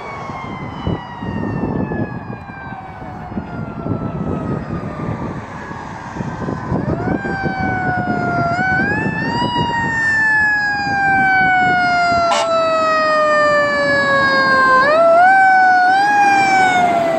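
Fire engine siren wailing, its pitch sliding slowly down and then climbing back up twice, growing louder as the truck approaches over the rumble of passing road traffic.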